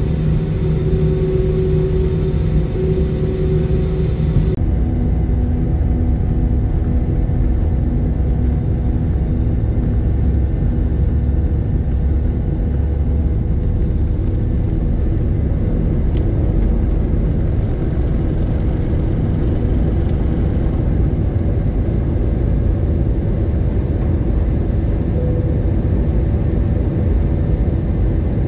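Airbus A320 jet engine noise heard inside the cabin: a steady, loud rumble and whir with a few held tones. Its character changes abruptly about four and a half seconds in.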